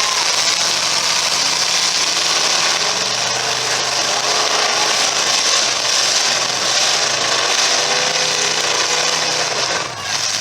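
Several semi-stock demolition derby car engines running loudly together, their pitch rising and falling as they rev.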